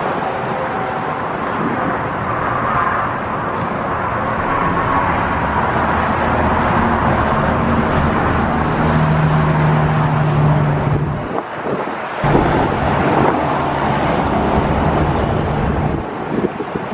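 Steady road noise of a car driving, with tyre and wind rumble and a short steady hum around the middle.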